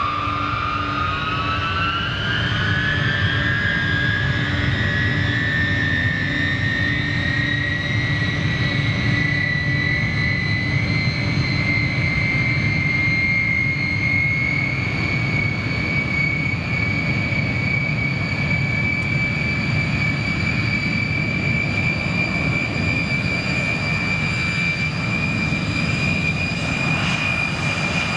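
Airliner jet engine spooling up, its whine rising in pitch over the first few seconds and then holding steady at high power over a constant low rumble.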